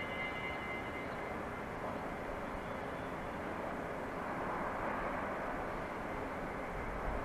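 Steady distant outdoor rumble, a wash of far-off traffic and industrial noise that swells slightly about four to six seconds in. A faint high whine fades out about a second in.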